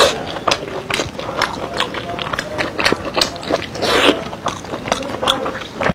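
A person chewing pork large intestine, with wet smacking and clicking mouth sounds coming irregularly, several a second, and a longer wet sound about four seconds in.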